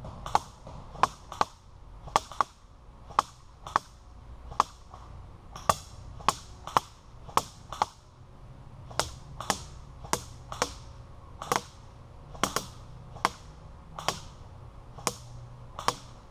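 Airsoft BBs striking a wooden board one shot at a time, heard from just behind the wood: about 27 sharp cracks in uneven succession, roughly two a second with a few short pauses.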